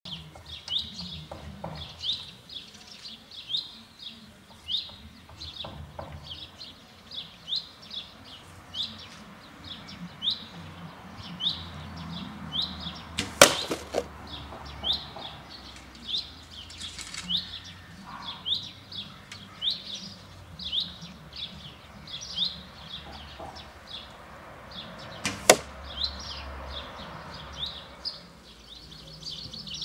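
Two sharp arrow impacts about twelve seconds apart, carbon arrows striking small box targets on the lawn. Under them a bird repeats a short downward chirp over and over, more than once a second.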